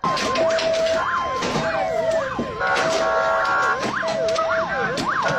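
Several vehicle sirens sounding at once: a fast rising-and-falling wail about twice a second over steady held tones, with a noisy background and many sharp knocks.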